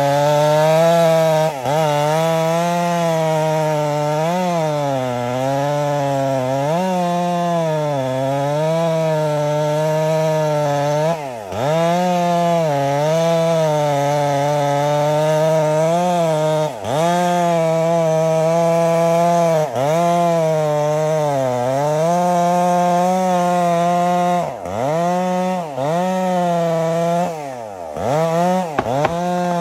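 Chainsaw cutting into a tree, the engine held at high revs with its pitch sagging and recovering as the chain bites into the wood. Several times it drops briefly off the throttle and revs straight back up.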